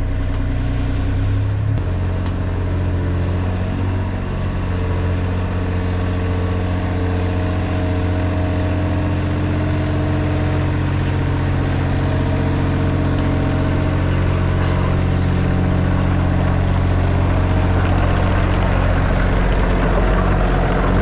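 Takeuchi TB235-2 mini excavator's diesel engine running steadily. Its pitch steps up about two seconds in and shifts a little now and then after that.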